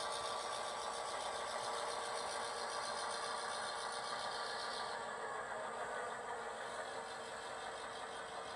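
Model diesel locomotives running past on a layout, giving a steady diesel engine drone. The drone eases slightly in level about halfway through.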